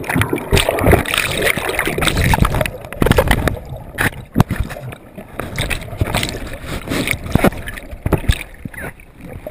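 Muffled churning water and bubbles heard from inside a submerged GoPro housing as it tumbles in breaking surf after a kayak capsize, with many irregular knocks and thumps.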